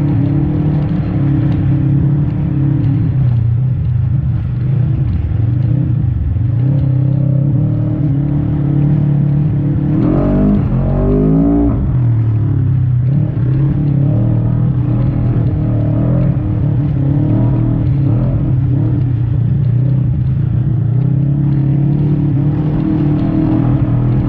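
Side-by-side UTV engine running hard at speed over sand, a steady drone with a quick rise and fall in revs about ten seconds in.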